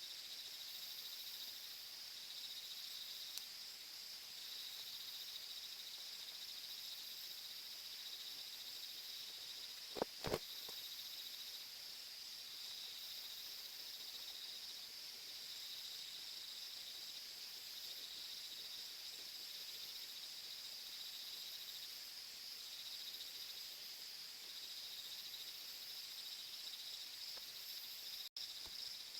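Steady chorus of insects such as crickets chirping in high, pulsing tones. Two short clicks come about ten seconds in.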